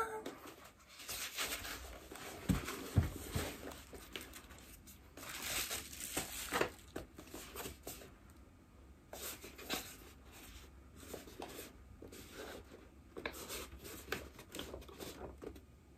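A package being unwrapped and handled: irregular rustling, crinkling and tearing of packaging, with two soft thumps about two and a half seconds in.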